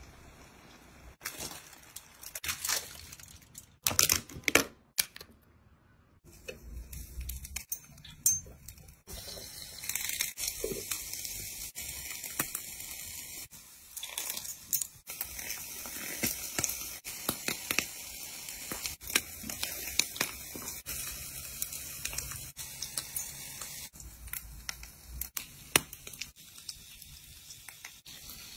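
Close eating sounds: food being torn apart and crunched, with crinkling and scattered sharp clicks, busier and more crackly from about a third of the way in.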